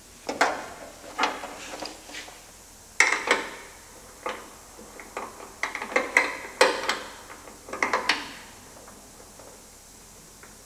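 Sharp clicks and clattering knocks of a metal clamp being fitted and tightened onto the bonnet hinge of a Porsche Boxster 986, irregular handling sounds in small bursts that stop about eight seconds in.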